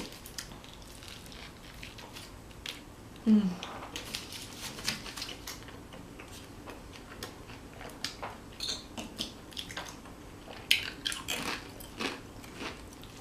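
A person eating close to the microphone: wet chewing and biting with scattered crisp crunches, which grow denser and louder about ten seconds in. A brief vocal hum comes a little over three seconds in.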